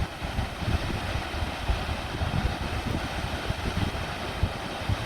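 Steady rush of a waterfall and the river below it, with wind buffeting the microphone in irregular low thumps.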